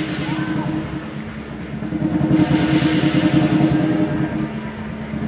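Lion dance percussion: a big drum beaten in fast, steady strokes, with gongs ringing and cymbals clashing, the cymbals growing louder about two seconds in.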